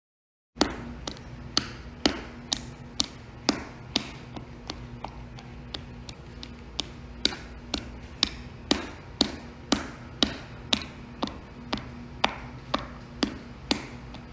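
A steady run of sharp taps or clicks, about two a second, starting about half a second in, over a faint low hum.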